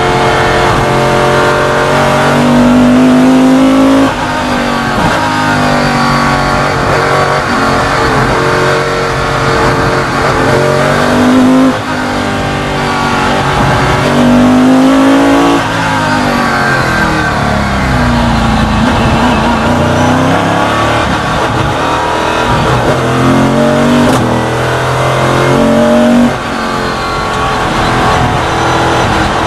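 Superlite Eagle Coupe race car's engine heard from the cockpit at speed, revving hard with its pitch climbing and then dropping suddenly at gear changes several times, and falling away under lift-off in between.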